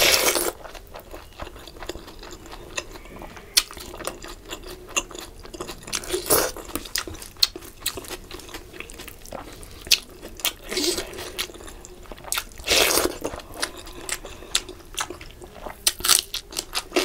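Close-miked eating sounds of fish curry and rice eaten by hand: wet chewing and squishing with small crunches and clicks. There are about five louder smacks, the longest a little after the middle.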